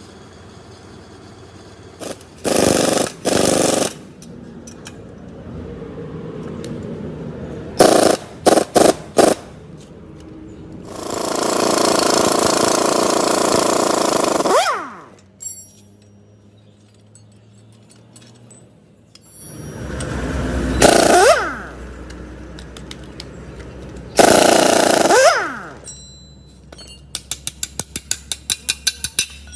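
Pneumatic impact wrench fired in repeated bursts: two short ones, four quick blips, then a longer run of about three and a half seconds, with the pitch falling as the tool spins down after several bursts. Near the end comes a run of fast clicks, several a second.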